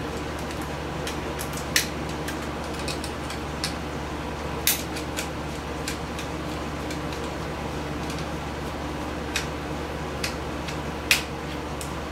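Scattered small clicks and taps of a screwdriver and metal parts as screws are worked out of the camera's circuit board, the sharpest about 2, 5 and 11 seconds in, over a steady low background hum.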